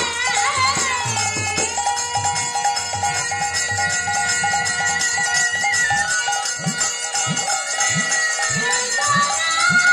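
Bengali nam kirtan: a woman sings over a steadily droning harmonium, with hand cymbals jangling. From about six and a half seconds in, a khol drum comes in with low strokes that slide in pitch, about three a second.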